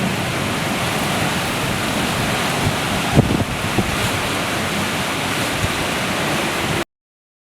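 Hurricane-force wind blowing across the microphone over heavy surf, a steady loud rushing noise with a few sharper gusts around the middle. It cuts off abruptly near the end.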